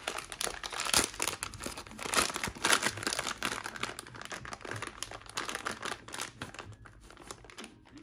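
Foil-lined plastic packaging pouch crinkling and rustling as it is pulled open and handled, most intense in the first few seconds.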